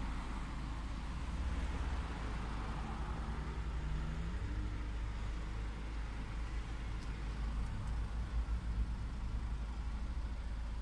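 Ford Focus ST-1's 2.0 TDCi four-cylinder diesel engine idling steadily, heard from inside the cabin.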